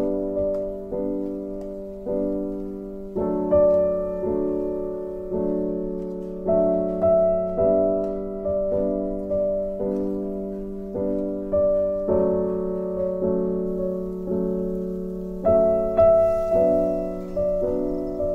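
Background piano music: gentle notes and chords struck about once or twice a second, each fading away before the next.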